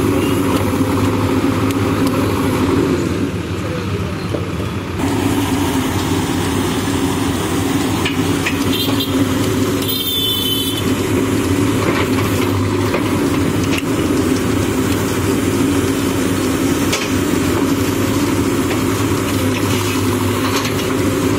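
Diesel engine of a Manitou TLB 844S backhoe loader running steadily while the backhoe arm works. The engine eases off for about two seconds around three seconds in, then picks up again. A brief high-pitched sound comes about ten seconds in.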